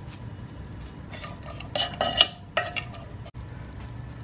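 A black plastic ladle stirring pumpkin pieces and cooked cowpeas in a non-stick pot, with a few short scrapes and knocks against the pot, the loudest about two seconds in. A low steady hum lies underneath.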